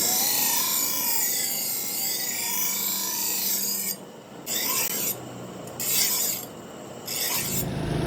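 Steel blade of a gandasa (chopper) being sharpened, a harsh rasping scrape of metal: one long continuous pass for about four seconds, then three short strokes with pauses between.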